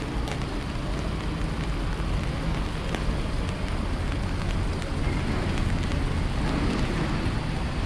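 Steady rain hiss with scattered sharp taps, over a low rumble of wind on the microphone.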